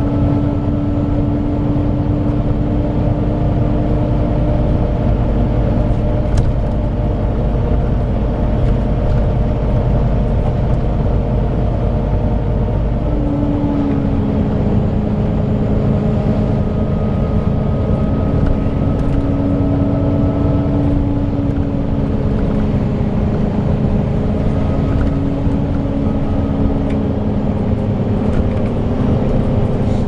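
Volvo B9TL double-decker bus heard from a passenger seat on board while driving: a steady engine drone with road noise and a faint high whine. The engine note drops in pitch about halfway through.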